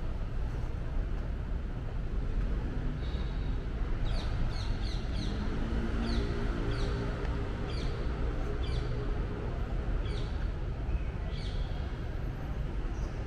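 Steady city traffic rumble, with a bird calling over it in a run of short, sharp, downward-sliding chirps from about three seconds in until near the end.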